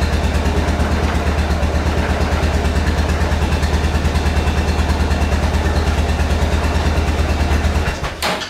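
1999 Kawasaki Prairie 400 ATV's single-cylinder four-stroke engine idling steadily with an even pulse, running on its freshly rebuilt carburetor. It shuts off about eight seconds in, followed by a short sharp click.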